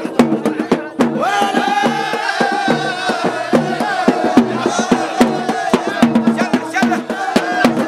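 Traditional drums beating a steady rhythm while a group of men chant in unison, the long held chant coming in about a second in.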